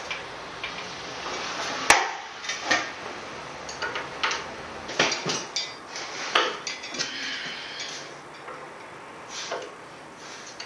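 Scattered metallic clinks and knocks of tools and parts being handled on a Bedford RL engine block during dismantling, the sharpest knock about two seconds in.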